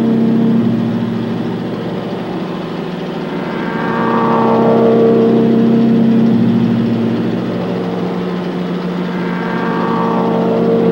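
Heavy earth-moving machine's diesel engine running steadily, swelling louder twice, as under load, about four seconds in and again near the end.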